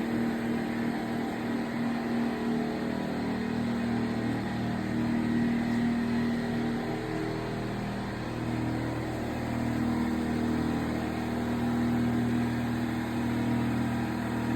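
A machine running steadily with a low, even hum whose pitch wavers slightly around the middle.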